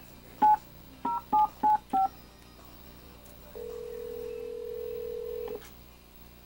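Touch-tone telephone being dialed: five quick key beeps within about a second and a half, then after a pause one steady ring of the ringback tone, about two seconds long, as the called number rings.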